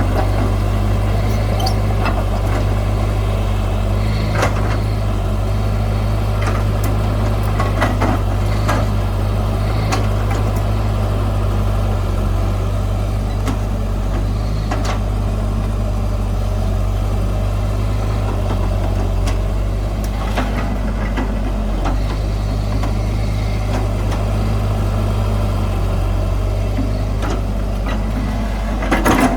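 Heavy diesel earthmoving machinery running steadily, a constant low engine drone, with scattered short metallic knocks and clanks.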